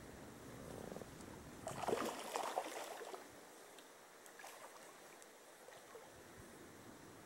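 A duck splashing on the river surface, a noisy crackling splash lasting about a second and a half, a couple of seconds in, over a faint steady background.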